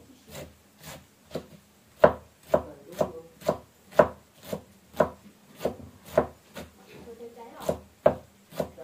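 Kitchen knife chopping leafy greens on a thick round wooden chopping block: a steady run of sharp knocks, about two a second, with a brief pause near the end.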